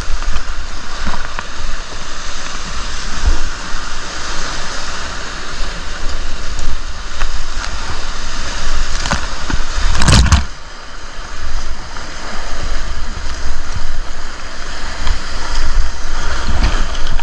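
River water rushing around a packraft, a steady noise with an uneven low rumble, and one sudden loud knock or splash about ten seconds in.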